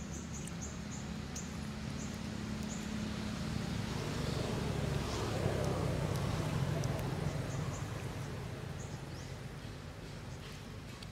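A motor vehicle going by: a low hum swells to its loudest about halfway through and fades again. Short high chirps come near the start and again near the end.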